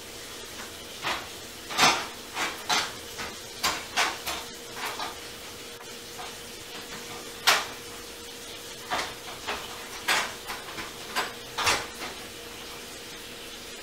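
A run of short, irregular clicks and clatters, about twenty in all, with a sharper knock about seven and a half seconds in, over a faint steady hum.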